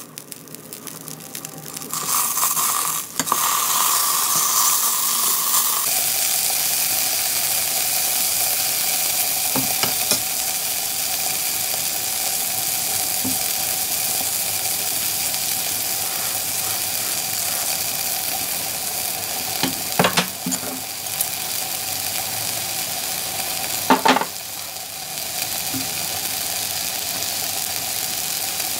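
Beef steak sizzling steadily on a hot grill pan. It goes quieter as the meat is lifted with metal tongs at the start, then louder once the meat is flipped back down. A few sharp metal clicks, the loudest two in the second half, come from the tongs.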